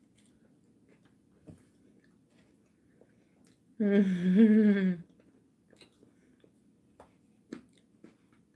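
A person hums a wavering, closed-mouth "mmm" for about a second, roughly halfway through, between faint mouth clicks of chewing.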